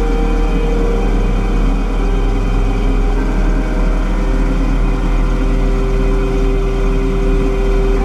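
Combine harvester running steadily while cutting and threshing wheat: a constant low engine drone with a steady mechanical whine over it.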